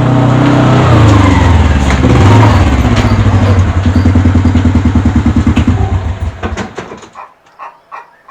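An engine running, then shut off: its pulses slow down and fade out about seven seconds in.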